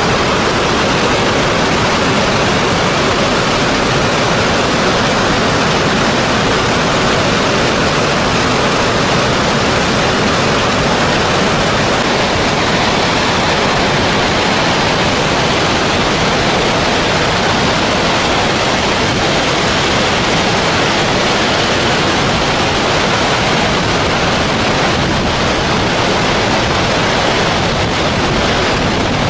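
Water released from a dam gushing down a spillway in a loud, steady rush of white-noise water.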